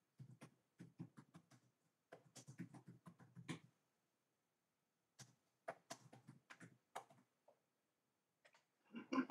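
Near silence with faint, scattered clicks and taps in three loose clusters, and a short louder noise just before the end.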